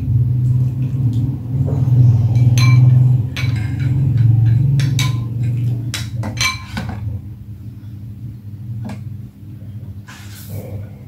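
A metal spoon clinks against a glass bowl several times while stirring liquid jelly mixture, the clinks bunched in the middle and again near the end. Under them is a low steady hum that is loudest in the first half and drops after about seven seconds.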